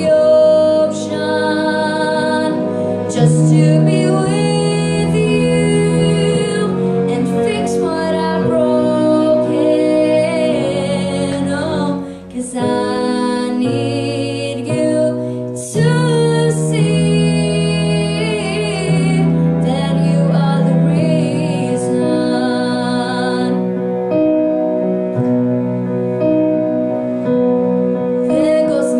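Young woman singing a song into a handheld microphone over instrumental accompaniment, with long held notes.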